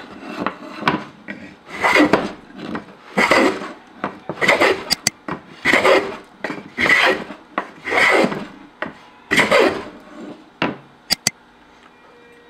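Small restored Urco hand plane shaving a wooden strip in repeated strokes, each a rasping hiss, about one every second or so, with a couple of sharp clicks near the end. The blade is taking off curled shavings, a sign it is cutting well.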